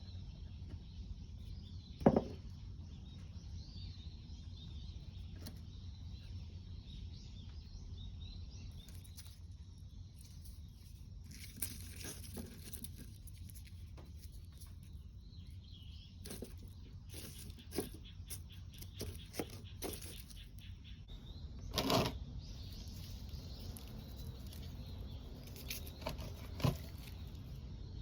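Outdoor ambience with a steady low wind rumble on the microphone, scattered rustling and clicks, and a few sharp knocks: the sharpest about two seconds in, a longer one about 22 seconds in, and another near the end.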